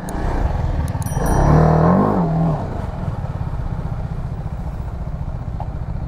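Motorcycle engine at low speed: its pitch rises and falls briefly about two seconds in, then it settles into a steady idle.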